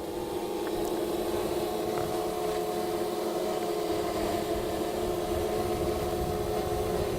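Three quadcopter drones (GoPro Karma, Parrot Anafi and Autel Evo) hovering, their propellers giving a steady multi-tone hum that swells slightly in the first couple of seconds as the Karma is climbed back up. There is a low rumble of wind on the microphone underneath.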